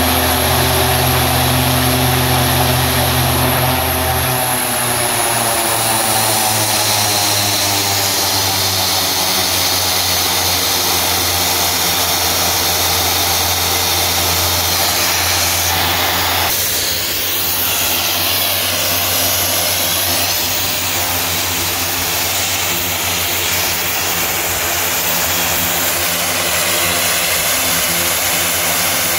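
The OV-10D+ Bronco's Garrett T76 turboprop engines running on the ground with propellers turning, during an engine-trim run. A few seconds in, the deep drone drops away and the high turbine whine slides down in pitch as the engine is throttled back. A little over halfway through, the sound changes abruptly.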